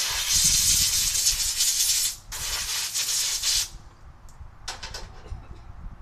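Two long bursts of hissing spray, the first about two seconds and the second just over a second, followed by a few light clicks.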